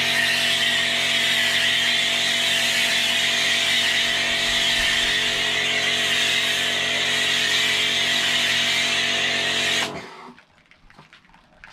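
Electric pressure washer running, its motor giving a steady hum under the loud hiss of a snow foam lance spraying foam. It stops abruptly about ten seconds in as the trigger is released.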